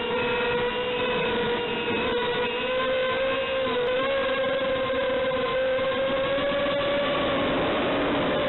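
FPV aircraft's motor and propellers running with a steady whine whose pitch wavers slightly and rises a little near the end.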